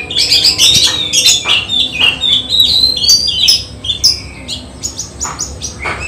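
Oriental magpie-robin singing a fast, varied run of short whistles, chirps and quick sweeping notes, thinning out for a moment near the end before picking up again.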